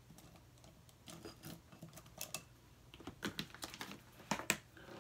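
Irregular light clicks and taps of small makeup items and brushes being handled and moved about while someone rummages for a dropped brush.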